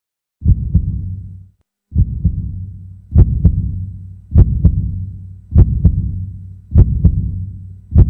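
Heartbeat sound effect: a deep double thump repeating about once every 1.2 seconds, starting about half a second in.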